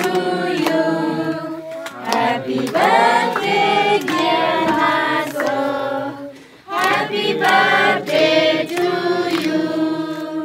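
A group of adults and children singing a birthday song together, with hands clapping along.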